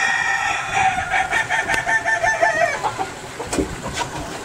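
Kokok Balenggek rooster crowing: one long crow of about three seconds that breaks into a quick run of stepped notes in its second half, the tiered crow the breed is kept for.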